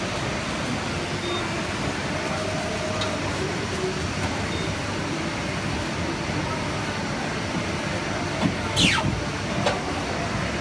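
Steady running noise of a guillotine paper-cutting line, with a short swish falling in pitch and a couple of clicks near the end as a stack of paper is worked on the metal cutter table.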